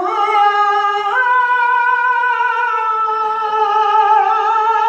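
Male flamenco singer singing a fandango: one long, ornamented held vowel that steps up in pitch about a second in, then drifts slowly down.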